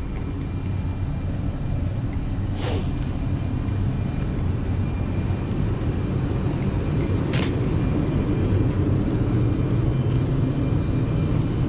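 Steady low mechanical rumble of machinery running, with two short sharp hissing clicks, one about three seconds in and one about seven seconds in.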